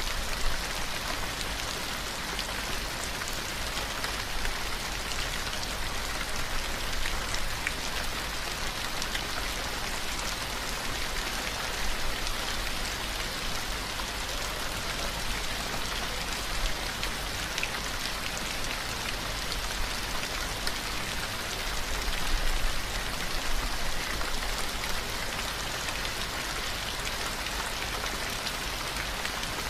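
Steady rain: an even, unbroken hiss of falling rain with scattered faint drop ticks.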